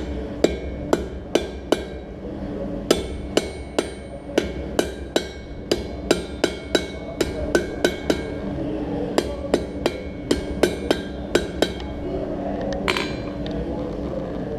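Blacksmith's hammer striking hot steel on an anvil in quick runs of ringing blows, about two to three a second, with short pauses between the runs. A brief metallic ring comes near the end, over a steady hum.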